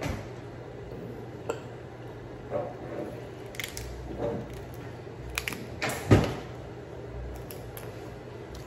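Cooked blue crab being cracked and pulled apart by hand: a string of irregular shell cracks and snaps with wet pulling sounds, the loudest snap about six seconds in.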